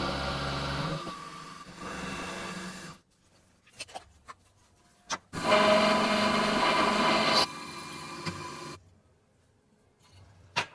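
End mill on a milling machine cutting into a small metal block held in a vise, in two passes with a steady ringing tone. The second pass is the louder, drops in level partway and stops abruptly. A sharp click near the end.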